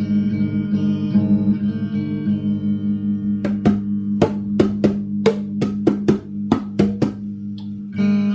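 Guitar holding a steady droning chord, joined about three and a half seconds in by a run of sharp percussive hits, about three a second, that stop about a second before the end.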